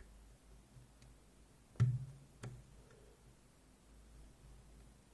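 Two sharp metallic clicks about two-thirds of a second apart from lock picks working the pins of a Ruko Triton lock, the first followed by a short low ring.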